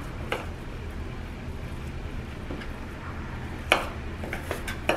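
A kitchen knife slicing raw beef steak and knocking against a wooden cutting board: three short sharp knocks, the loudest a little before the end, over a steady low hum.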